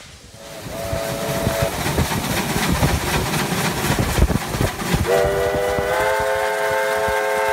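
Steam locomotive working past close by: a short steam whistle toot about half a second in, the locomotive's running noise with irregular knocks, then a long steam whistle of several notes sounding together from about five seconds in, held to the end.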